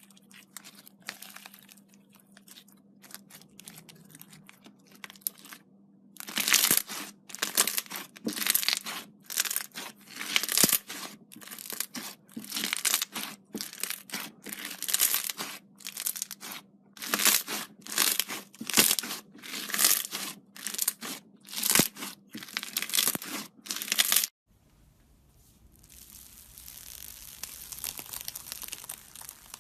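Slime being squeezed and worked by hand close to the microphone, making crunchy crackling and popping sounds. Faint at first, then loud crackling squeezes about twice a second from about six seconds in. These stop abruptly near the end and give way to a fainter, steadier crackle.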